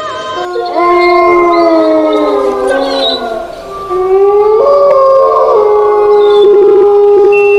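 Dogs howling, loud: several drawn-out howls overlap and slide down in pitch, then from about four seconds in one long steady howl holds, wavering near the end.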